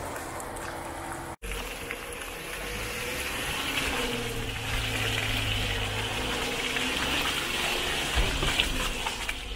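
Off-road Jeep driving along a muddy trail: a low engine hum under a steady rushing noise that gets louder after a brief dropout in the sound about a second and a half in.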